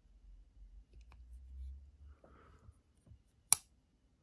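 Fox Knives Suru folding knife being worked by hand after it jammed: faint handling rubs and scrapes, then one sharp snap about three and a half seconds in as the stuck blade comes free and snaps shut into the handle.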